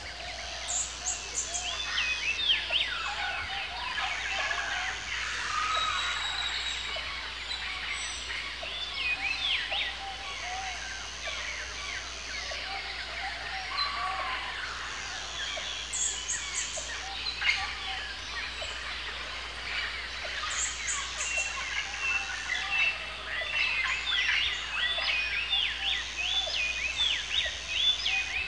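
A dense chorus of many birds chirping and chattering, short overlapping calls with no break, and every so often a brief burst of high buzzing.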